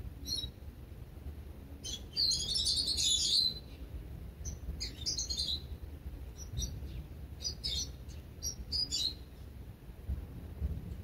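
Small songbirds chirping. A burst of rapid twittering comes about two seconds in, then scattered short chirps, over a low steady rumble.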